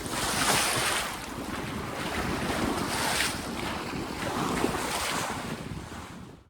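Sea water rushing along a sailboat's hull at sea, surging in three washes about two seconds apart, with wind buffeting the microphone in a low rumble. The sound cuts off abruptly near the end.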